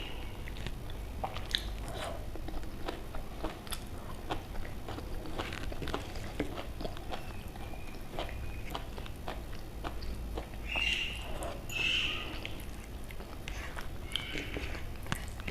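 Close-miked eating sounds: a person chewing and biting food, with many small wet mouth clicks and smacks. A few brief high squeaks stand out about eleven and twelve seconds in.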